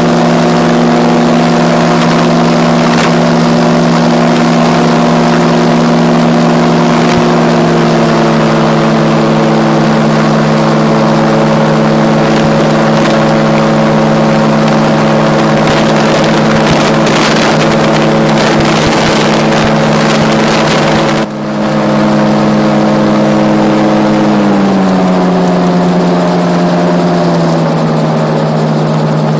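RAF 2000 GTX SE gyroplane's engine and pusher propeller droning steadily in flight, heard from inside the open cockpit. The engine note steps down slightly about a quarter of the way in and again near the end as the engine slows. There is a brief dip in the sound about two-thirds of the way through.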